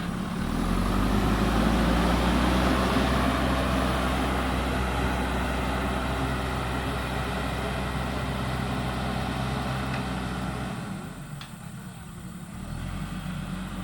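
JCB 3DX backhoe loader's diesel engine running steadily, easing off briefly near the end and then picking up again.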